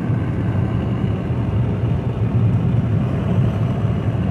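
A car driving along, heard from inside the cabin: steady road and engine noise, mostly low in pitch.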